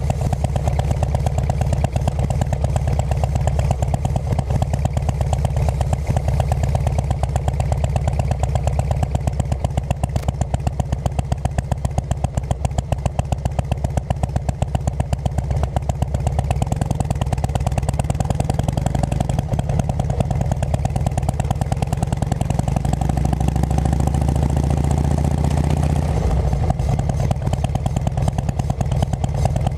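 2006 Harley-Davidson Road King Classic's Twin Cam 88 V-twin running at low speed through aftermarket Cycle Shack exhaust pipes, a steady pulsing exhaust note, with the note changing a little near the end as the bike slows into a parking lot.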